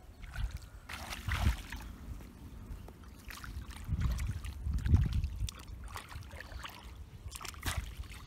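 Shallow floodwater sloshing and splashing as a person wades and jabs a multi-pronged fish spear (teta) into it. The splashes come in several separate bursts.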